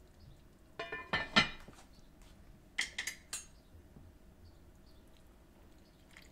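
Metal kitchenware clinking against cookware: a quick cluster of clinks about a second in, the loudest among them, and a few more about three seconds in.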